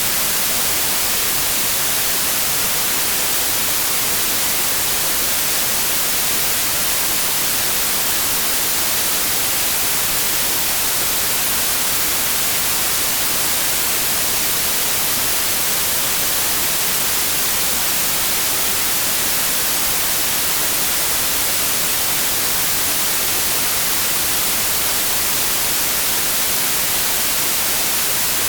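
Steady synthetic white noise, an even, unchanging hiss strongest in the treble.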